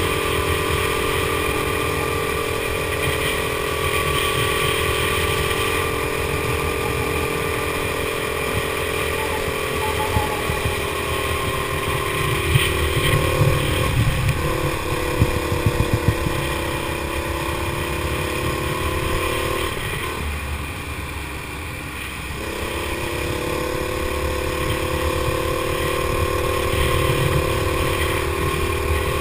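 A go-kart engine running hard, heard on board the kart, holding a fairly steady pitch. Its pitch and level drop for a couple of seconds about two-thirds of the way through, then pick up again. A few short knocks and rattles come around the middle.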